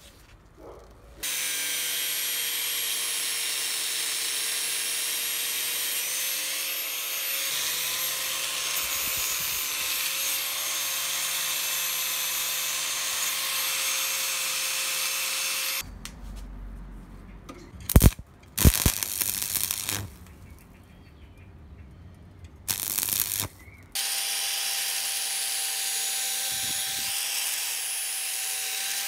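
Black+Decker angle grinder running steadily with an abrasive disc on the steel of a sickle clamped in a vise. It starts about a second in and stops about halfway. A couple of sharp knocks and a short burst follow, and it runs again for the last five seconds.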